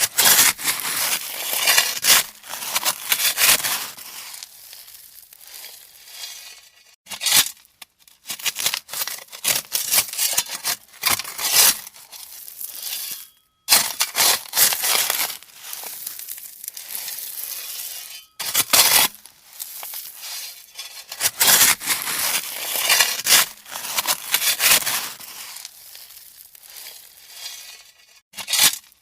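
Shovel digging into gravel, the stones crunching and scraping in repeated scoops with short pauses between them.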